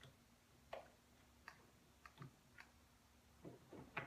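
Faint, scattered clicks and light knocks at irregular intervals, a little closer together near the end: hands fitting rear-window blind hardware (clips and spacer bars) inside a car, muffled by the back glass.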